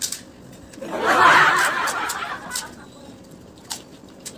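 Crisp pani puri shells cracking and crunching in short, sharp clicks as they are poked open and eaten by hand. A laugh runs from about a second in to nearly three seconds and is the loudest sound.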